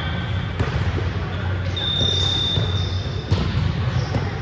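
Ball play on an indoor court in a large, echoing hall: a few sharp ball impacts, a steady high-pitched tone lasting about a second and a half midway through, and a constant low hum of the hall.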